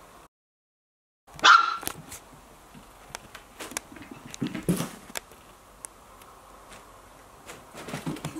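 Border terrier puppy barking: one loud, sharp bark about a second and a half in, then a second, quieter bark around the middle, with small clicks and knocks between.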